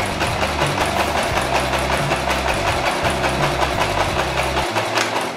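Singer Promise electric sewing machine running and stitching, with the reverse lever held down so it sews backwards; its needle mechanism makes a rapid, even ticking.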